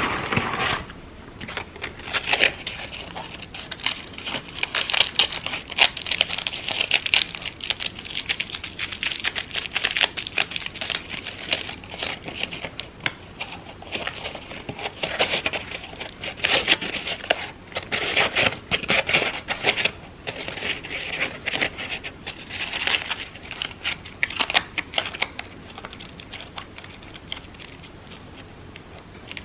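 Crepe paper crinkling and crackling as it is handled and twisted by hand: a dense, irregular run of small crackles.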